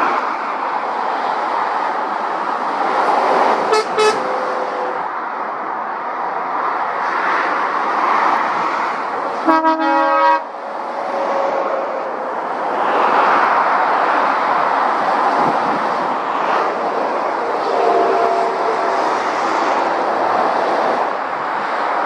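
Lorries and cars passing on a busy main road, the tyre and engine noise swelling and fading as each vehicle goes by. A vehicle horn toots briefly about four seconds in and sounds for about a second near the middle.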